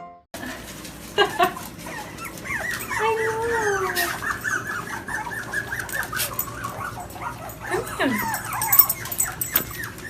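A dog whimpering and whining, in a run of many quick high-pitched cries with a few longer cries that fall in pitch.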